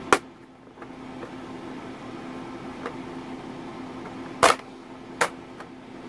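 Plastic bottom access cover of an ASUS ROG laptop being pried off, its clips snapping loose: one sharp snap right at the start, then two more about four and a half and five seconds in, with faint plastic ticks between. A steady hum from a room fan runs underneath.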